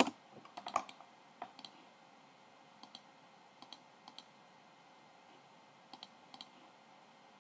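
Computer keyboard keystrokes and mouse clicks: a quick run of typing and clicks in the first second, then separate mouse clicks every second or so, several of them doubled, over a faint steady hiss.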